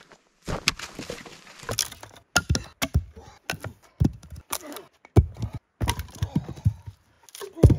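Dead logs and branches cracking and thudding as they are broken by stomping on them and by swinging them against a stump: a run of sharp cracks and knocks in short bursts, with sudden silent gaps between them.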